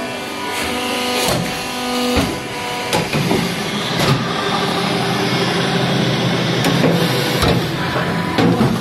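Biomass briquetting machine running: a steady mechanical hum with a held pitched tone, broken by several sharp knocks.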